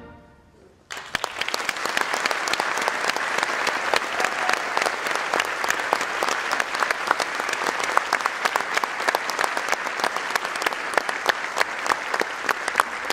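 A concert band's last chord dies away in the hall's reverberation, then audience applause breaks out suddenly about a second in and goes on steadily.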